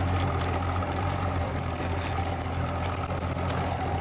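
A fishing boat's motor running steadily, a constant low hum with a few fixed tones above it.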